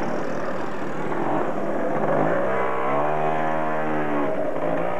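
A motor vehicle's engine in the street, its pitch rising about two seconds in, holding for a moment, then easing off, over steady street noise.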